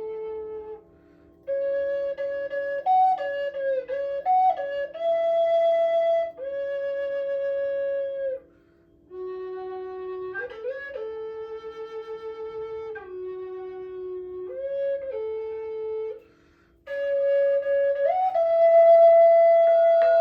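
Flute playing slow phrases of long held notes with slides between them, broken by three short pauses, over a steady low drone.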